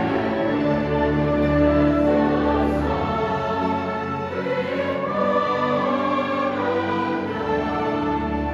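Symphony orchestra and a large choir performing together, the choir singing over held orchestral chords.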